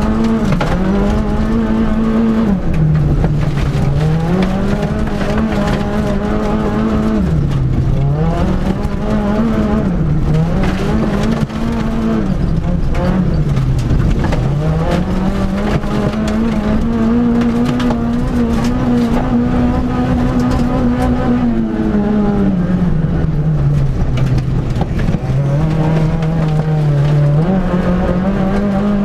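Peugeot 106 autocross car's four-cylinder engine, heard from inside the cockpit, running hard at high revs; its pitch falls away and climbs back about six times as the driver lifts off and gets back on the throttle. Tyre and dirt-surface noise runs beneath it.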